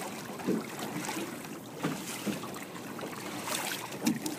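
Water splashing and sloshing at the side of a boat as a big blue catfish is let go by hand, with a few sharper splashes.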